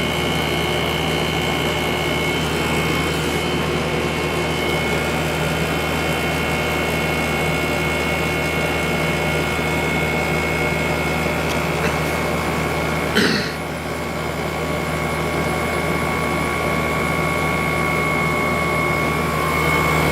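8000 BTU LG window air conditioner with an R32 compressor running steadily, a low hum under a couple of steady whining tones, and it sounds pretty good. About two-thirds of the way through there is a single sharp click, and the sound dips briefly before settling again.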